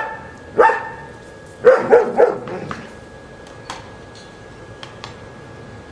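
German shepherd barking: a few short, sharp barks in quick succession in the first half, then quiet. The dog is barking at an inflatable cat lawn decoration it can't make sense of.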